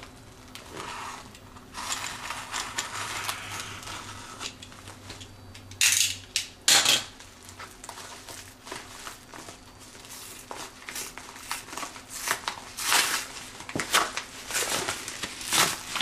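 A utility knife slitting open the top of a padded kraft-paper mailer, then the envelope crinkling and rustling as it is handled and pulled open. Two loud sharp scrapes come about six and seven seconds in.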